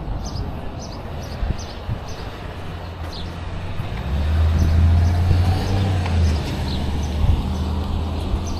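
A motor vehicle's engine running with a steady low hum, louder for a couple of seconds about halfway through, while small birds chirp repeatedly.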